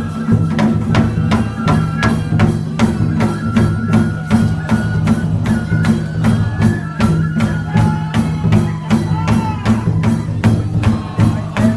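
Music with a steady percussion beat of about three strikes a second under a wavering melody line.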